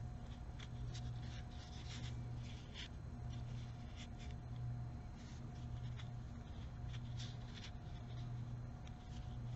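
Crochet hook working yarn through stitches: soft, irregular scratchy clicks and rubs of hook on yarn, over a steady low hum.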